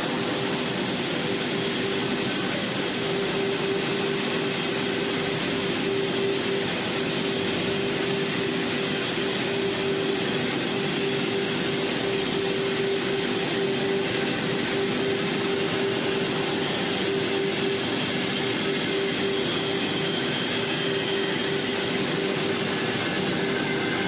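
Steady industrial machine noise: an even hiss with a constant hum, unchanging throughout.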